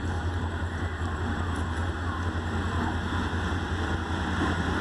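AGE-30 diesel locomotive approaching from a distance, its engine a steady low drone.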